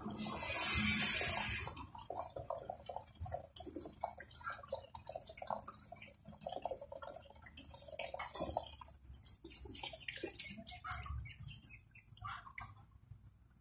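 Water splashing as a dog is washed in a basin: a loud rush of water for the first two seconds or so, then soft, scattered splashes and rubbing as the wet dog is scrubbed by hand.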